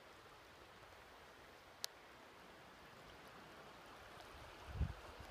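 Faint steady rush of a shallow river flowing. A single sharp click about two seconds in and a low thump near the end.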